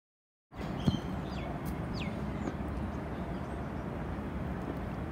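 Outdoor ambience that cuts in after half a second of silence: a steady low rumble of background noise, with a sharp knock just under a second in and a few short bird chirps over the next second.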